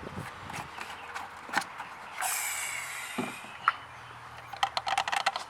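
Handling noise from the oil containers and filler during an engine oil top-up: scattered clicks and knocks, a hiss lasting about a second about two seconds in, and a quick run of small clicks near the end.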